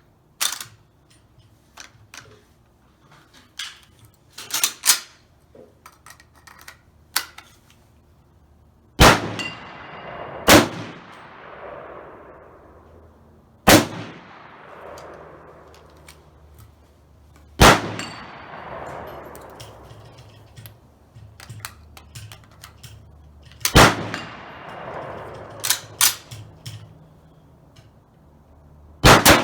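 Rifle shots fired a few seconds apart, six loud reports each followed by a long echoing tail. Lighter clicks and knocks come before the first loud shot.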